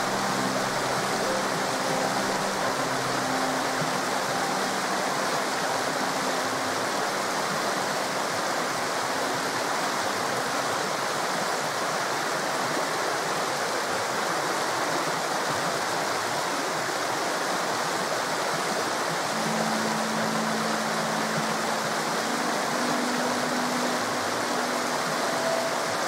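Forest river flowing, a steady rush of running water. Soft, held low music notes sit under it for the first few seconds and again from about two-thirds in.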